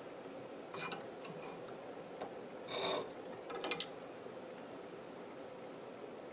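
Brief handling noises at a Gatco sharpening clamp on a machete: short scrapes and rubs as the hone's metal guide rod is worked out of the clamp's angle guide. There are a few scrapes about a second in, the loudest near three seconds, then a couple of sharp clicks.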